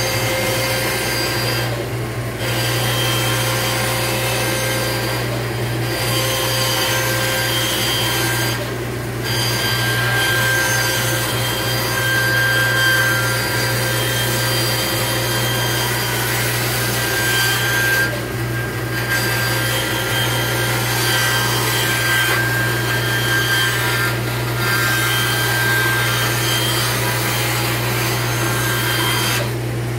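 Band saw ripping wooden strips, with the blade's cutting sound breaking off briefly a few times as the stock is fed and easing off near the end. Under it runs the steady hum of a dust collection system.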